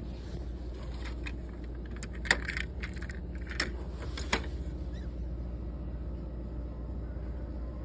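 Sharp clicks and clinks of a Kinsmart die-cast metal toy car being handled against a clear plastic display shelf, a short run between about one and four seconds in, the loudest just after two seconds. A steady low hum lies under it.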